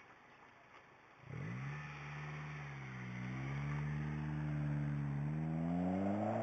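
2009 Honda Civic Si's four-cylinder engine through a newly fitted Tanabe Concept G axle-back exhaust, accelerating. It comes in suddenly about a second in, dips in pitch briefly, then climbs steadily in pitch and loudness as the revs rise.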